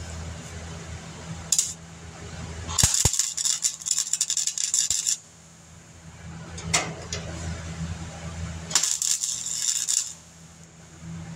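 Welder laying tack welds on sheet-metal patch panels of a 1950 Chevy body: two crackling, sputtering bursts, the first about two seconds long and the second about one, each preceded by a brief blip.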